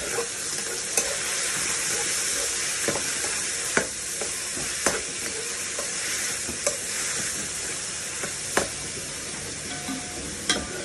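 Beef frying with ginger, garlic and chilli, sizzling hard in a hot pan while a metal ladle stirs it, knocking against the pan every second or two.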